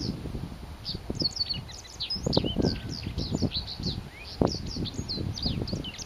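Japanese wagtail singing a fast run of short, sharp high twittering notes, with wind gusting on the microphone underneath.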